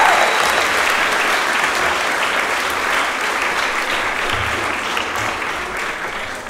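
Audience applauding, slowly dying away towards the end.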